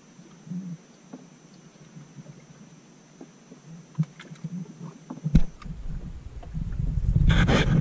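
Faint knocks and handling sounds aboard a small open fishing boat, then a sharp knock about five seconds in, followed by a low rumble that swells loud near the end.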